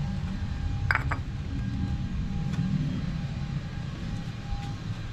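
Landscaping crew's engine-powered equipment running with a steady low rumble and a faint high whine that comes and goes. A single sharp click about a second in.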